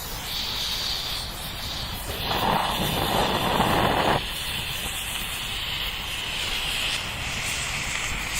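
A pyrotechnic fountain ('turbo candle') burning with a steady jet-like hiss. About two seconds in it grows louder and fuller for about two seconds, then drops back abruptly to the thinner hiss.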